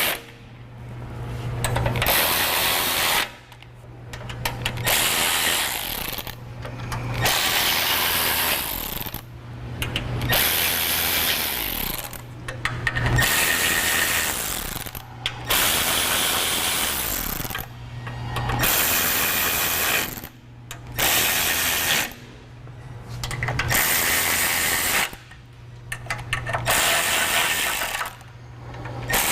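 Cordless power tool tightening the bolts of a bumper's mesh covers, running in repeated runs of one to three seconds with short pauses between, a steady motor hum under a rattling rasp.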